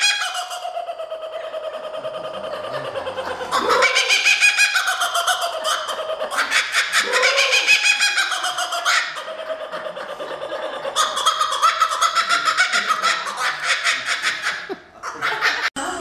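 Laughing kookaburra giving its laughing call: a long, rolling series of rapid cackling notes that rise and fall in pitch, swelling in several bouts and dipping briefly near the end.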